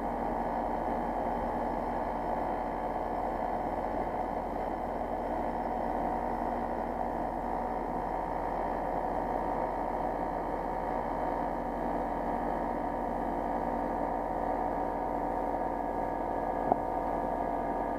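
Carrier Infinity variable-speed heat pump outdoor unit running steadily, compressor and condenser fan, in pump-down mode with the liquid line valve closed and suction pressure pulled down to about 17 psi. A short click near the end.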